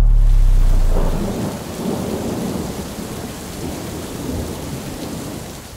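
Stormy outdoor ambience: a steady rushing hiss with low rumbling, after a deep low note fades out about a second in.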